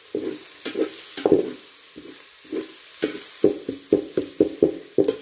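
Slotted metal spatula scraping and stirring sliced onions and garlic frying in ghee in a metal pot, over a steady sizzle. A few strokes come in the first second and a half, then a quick run of strokes in the last two seconds that stops abruptly.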